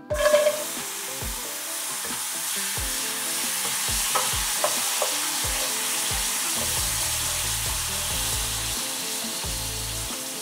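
Chopped onions, kimchi and spam hitting hot oil in a frying pan: a loud sizzle bursts up as they go in, then settles into a steady sizzle while they are stir-fried with a wooden spatula.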